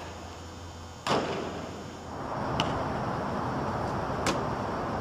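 A football smacks into a receiver's hands about a second in, a sharp catch that echoes in the indoor training hall. Then a steady rushing noise takes over, with two light knocks.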